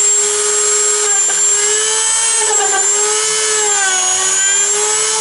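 Small handheld rotary tool whining at high speed as it grinds around the edge of a hole in the fibreglass deck from below. Its pitch sags slightly twice as the bit bites in.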